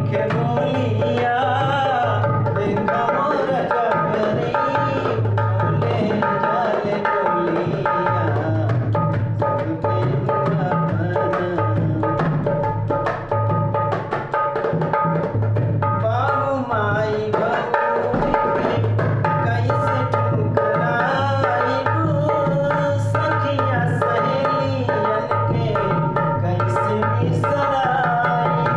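Dholak played with the hands in a steady folk rhythm under a sustained, droning melody, an instrumental stretch of a nirgun song.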